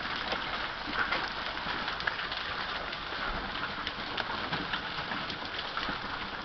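Heavy rain hissing, with many sharp clicks and knocks of large hailstones, bigger than golf balls, striking the ground and a parked pickup truck.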